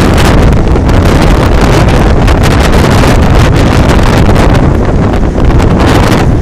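Strong blizzard wind hitting the microphone, a loud, continuous rumbling rush with constant gusty buffeting.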